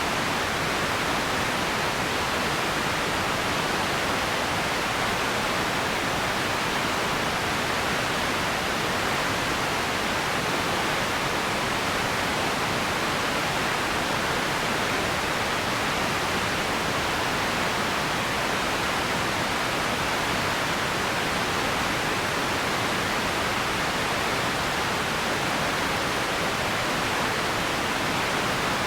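Empty ambience noise: a steady, even hiss with no separate events, strongest in the middle and upper range and unchanging in level.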